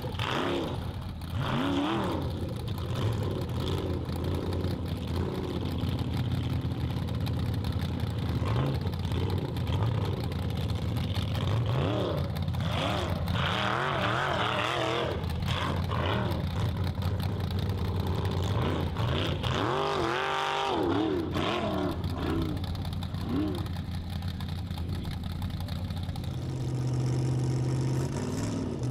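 Formula Offroad competition buggy's V8 engine revving hard, its pitch climbing and dropping over and over under heavy throttle. Near the end it settles to a steady idle.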